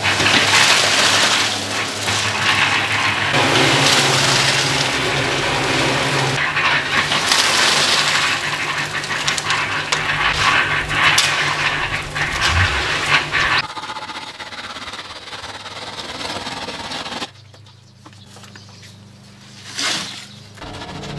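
Scraping and clinking of tools spreading and screeding wet concrete for a floor slab, in short takes that change abruptly. It is much quieter for the last few seconds apart from one brief swell.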